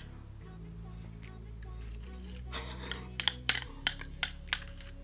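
Metal teaspoon clinking and scraping against a small glass bowl as it stirs a thick clay paste. The first half is quiet; about halfway in comes a quick run of sharp clinks and scrapes.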